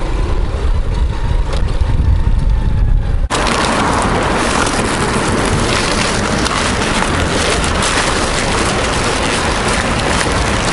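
Motorcycle riding heard through a helmet-mounted action camera: a heavy low rumble of wind and engine. About three seconds in it cuts abruptly to a steady, rushing hiss.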